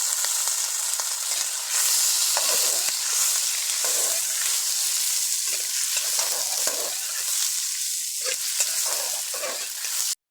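Food sizzling in hot oil in a pan, with a steady hiss, while it is stirred: a spatula scrapes the pan in irregular strokes every second or two. The sizzle cuts off abruptly near the end.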